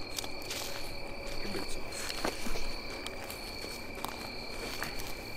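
Steady insect chorus at dusk, an unbroken high trill at two pitches, with a few soft scattered ticks and rustles of movement in dry leaf litter.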